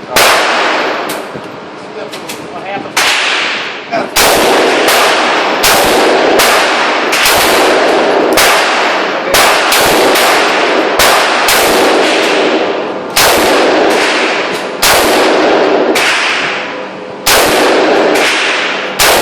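A quick, irregular string of gunshots, over twenty, often less than a second apart, each followed by a long echoing tail.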